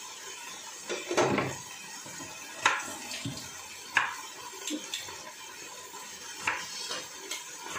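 Dishes and kitchen utensils being handled on a counter: about six sharp clinks and knocks, a second or so apart, over a steady low hiss.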